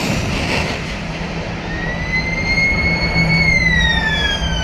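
Rocket noise of a missile just fired from a shipboard launcher, fading over the first second. Then a siren-like tone rises slowly, holds, and falls away from about three and a half seconds in, over a steady low hum.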